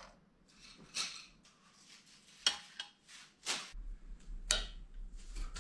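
A handful of light, sharp clicks and taps of small hard objects, irregularly spaced over faint hiss, with a low hum coming in about two-thirds of the way through.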